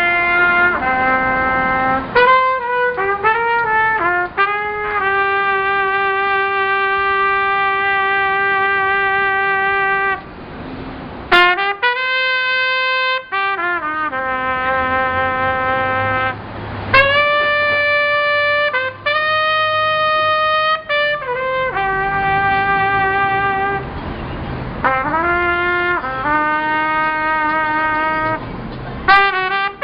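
Solo brass horn playing a slow melody of long held notes, scooping and sliding into each pitch, with a couple of short breaks between phrases.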